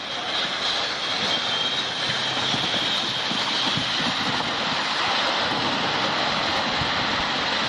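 A vehicle running with a steady, loud rushing noise, with a few faint knocks underneath.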